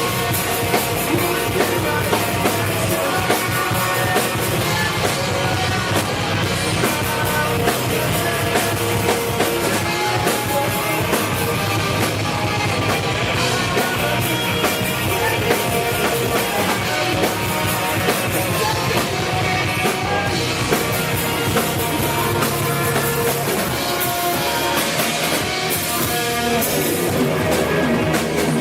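Rock band playing: drum kit and guitars in a loud, dense, continuous passage with a steady drumbeat.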